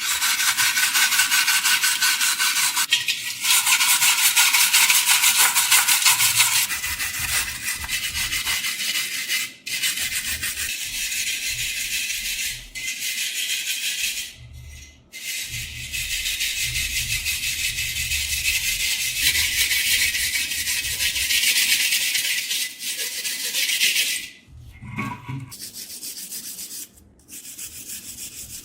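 Abrasive rubbing on rusty steel as the rust is stripped off. It runs in long, loud stretches with brief pauses, then stops about 24 seconds in, leaving lighter scraping and handling sounds.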